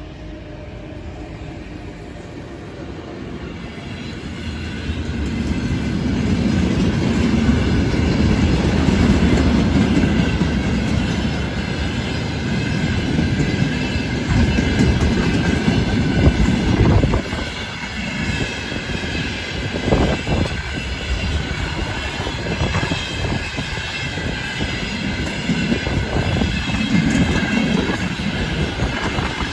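Twin-section VL10u electric locomotives passing at speed, hauling a dead EP1 electric locomotive. A steady rumble of wheels on rail builds over the first several seconds, with a few sharp clacks over rail joints later on.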